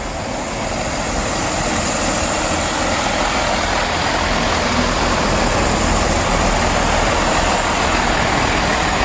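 A GWR Turbo (Class 165/166) diesel multiple unit running past at close range, its underfloor diesel engines giving a steady low rumble that slowly grows louder as the carriages go by.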